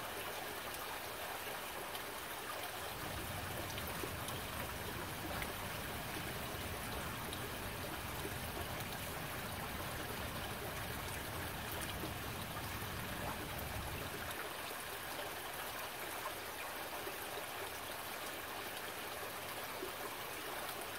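Shallow forest stream flowing and trickling over rocks, a steady rush of water. A low rumble joins underneath about three seconds in and stops about fourteen seconds in.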